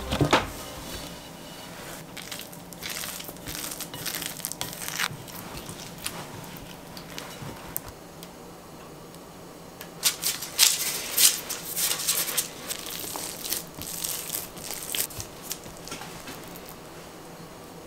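Close handling sounds: a cloth rustling as it comes off a bowl of dough, then baking paper on a metal tray crinkling under the hands in irregular bursts as the focaccia dough is laid on it and pressed out.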